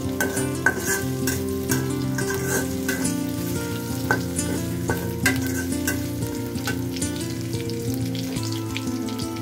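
Sliced onions sizzling in hot oil in a wok, with a metal spatula scraping and tapping against the pan at irregular moments as they are stirred. Soft background music plays underneath.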